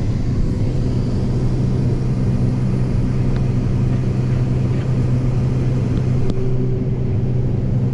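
A vehicle engine running steadily at a constant pitch, a continuous low hum.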